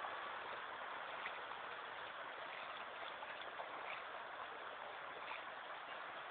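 Steady wash of sea surf over shallow water, with a few faint splashes from people wading.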